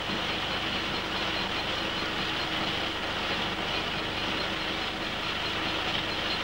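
Brickworks machinery running: a steady mechanical drone with a low hum, from the brick press and wire cutter slicing extruded clay into bricks.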